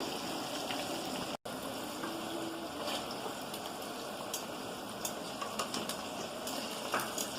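Chicken pieces frying in hot oil: a steady sizzle with scattered sharp crackles and pops, cutting out for an instant about a second and a half in.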